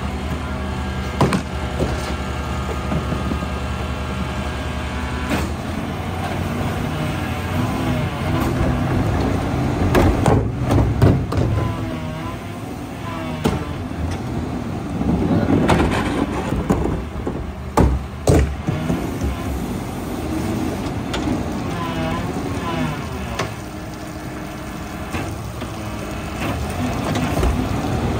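New Way rear-loader garbage truck running at the curb while carts and a bucket of yard waste are tipped and banged against its hopper. A steady engine hum runs throughout, with a cluster of loud bangs and knocks near the middle.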